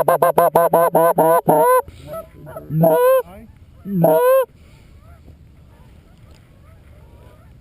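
Hand-blown goose call worked right at the microphone: a fast run of short clucks, about eight a second, for nearly two seconds, then two drawn-out honks with a cracking break in pitch. Faint goose calls follow in the background.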